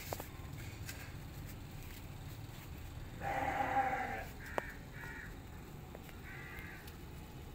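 Kitten meowing: one long, loud meow about three seconds in, then a few short, higher mews.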